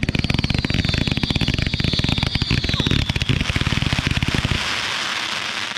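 "Zip It" firework cake firing a rapid volley of shots, with a high whistle that slides slightly down in pitch for the first three seconds. The shots stop about four and a half seconds in, leaving a fizzing hiss.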